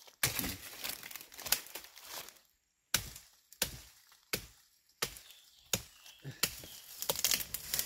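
Sharp chopping strikes of a digging tool cutting into the forest floor to open up a hole. The strikes are irregular at first, then come roughly one every two-thirds of a second.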